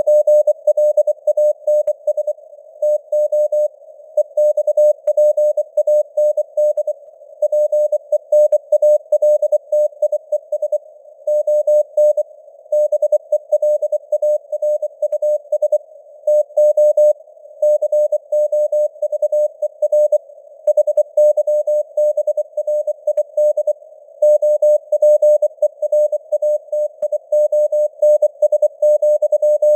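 Morse code (CW) sent at 24 words per minute: a single steady pitch keyed on and off in quick dots and dashes, over a narrow band of simulated radio hiss.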